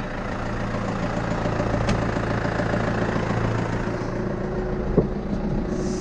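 Tractor engine idling steadily, with a faint click about two seconds in and a short sharp sound about five seconds in.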